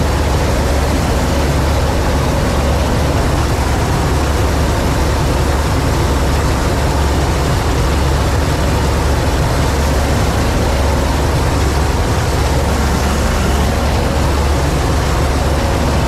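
Massey Ferguson 86 combine harvester running steadily while cutting wheat, heard from the driver's seat: a loud, unchanging deep engine drone under the noise of the header and threshing machinery.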